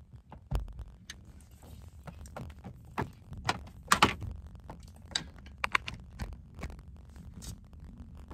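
Handling noise: irregular clicks, taps and rustles of things being moved about, the loudest about four seconds in.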